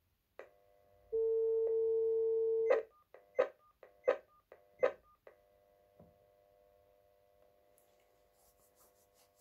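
Cordless phone handset on a GSM line: a click as the line opens, then a steady dial tone for about a second and a half, cut off as the same key is pressed four times to dial 4444. Each key press is a click followed by a short keypad beep.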